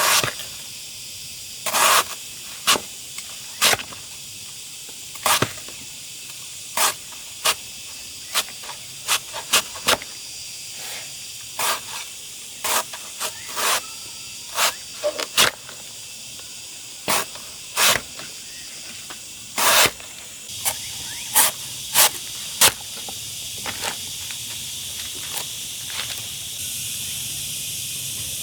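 A series of irregular sharp strikes, about one or two a second, over a steady high hiss.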